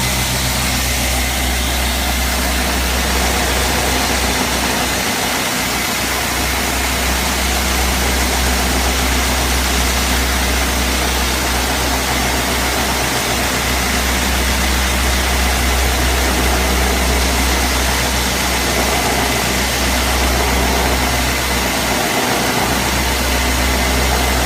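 Homemade belt grinder running steadily: a loud low motor hum with an even hiss over it. The low hum dips briefly twice.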